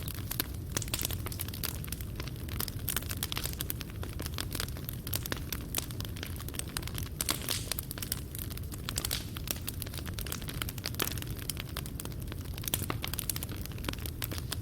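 Fireplace fire crackling, with many small sharp snaps and pops of burning coals over a low steady rumble.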